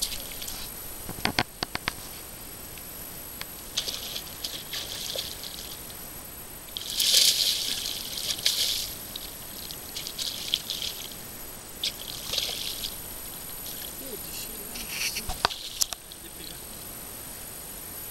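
Water splashing and sloshing as a hooked traíra thrashes at the surface, in repeated bursts. The biggest splash comes about seven seconds in, and a few sharp clicks sound about a second in.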